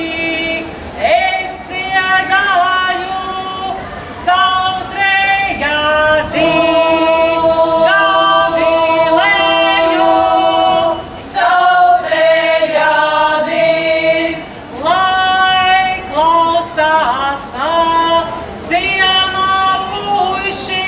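Latvian folklore ensemble of women singing a folk song together, in phrases with short breaks between them. In places a low note is held steady under the moving melody.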